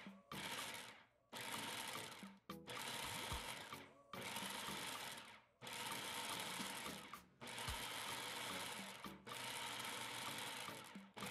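Food processor pulsing to chop bell peppers and jalapeño: the motor and blade run in about eight short bursts of roughly a second and a half each, with brief gaps between them.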